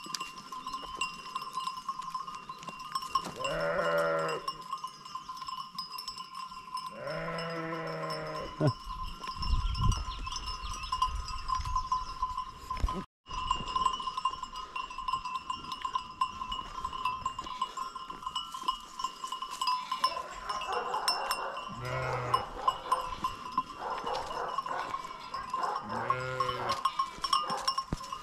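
Flock of sheep with bells ringing steadily, and sheep bleating about four times: around four and seven seconds in, and again around 22 and 26 seconds in. A low rumble comes in about nine seconds in for a few seconds, and the sound drops out briefly near the middle.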